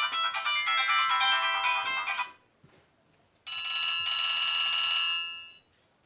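Nokia mobile phone ringtones: a quick run of electronic melody notes that stops about two seconds in, then after a short pause a single held electronic tone for about two seconds, fading out near the end.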